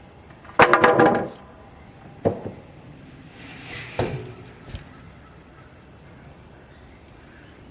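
Thin cedar boards clattering as they are dropped onto a stack: a loud rattle of wooden knocks about half a second in, then single knocks around two and four seconds in.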